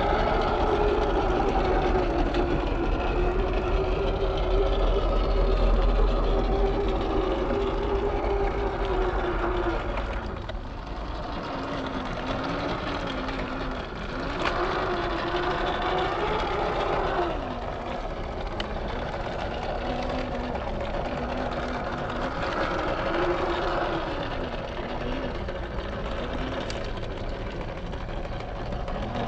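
The electric motor and gearbox of a 1/10-scale Boom Racing BRX02 RC crawler whining as it drives through mud and water. The pitch rises and falls with the throttle, and the whine drops out briefly about ten seconds in.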